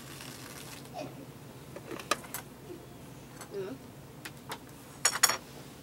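Small handling sounds on a tabletop: tissue paper rustling and thin wooden sticks being picked up and set down, a few light clicks and taps over a quiet room hum, with the loudest a short crackle about five seconds in.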